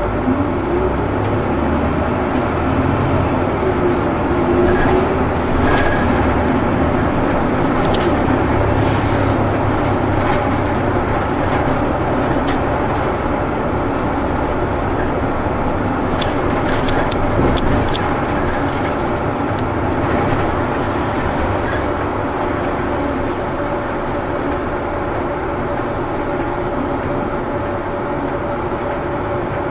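Kyoto City Bus diesel engine and road noise heard from inside the cabin, with the engine note climbing over the first few seconds as the bus pulls away from a stop. It then runs on at a steady drone, with a few faint rattles and clicks.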